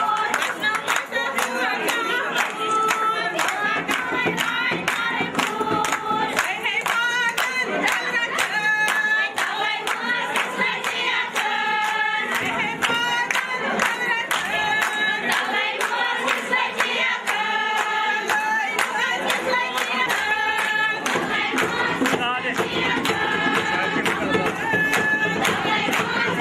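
A group of women singing a Kashmiri mehendi raat wedding song together, kept in time by steady rhythmic hand-clapping.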